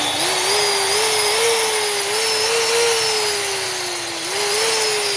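Hitachi 100 V vibration (hammer) drill running free through a triac voltage-reducing circuit on 220 V mains. The motor's whine wavers up and down in pitch, sags over the middle, picks up again a little past four seconds in, then sags again.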